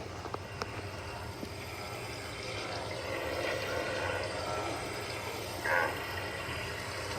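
Black wildebeest calling over an idling vehicle engine's steady low hum, with one short, louder call near the end.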